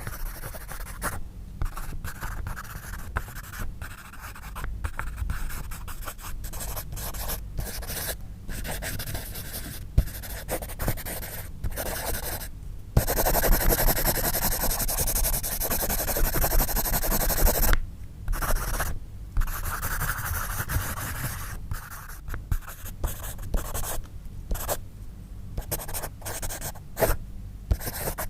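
Pencil writing on paper: short scratchy strokes separated by brief pauses, with a louder unbroken stretch of about five seconds near the middle.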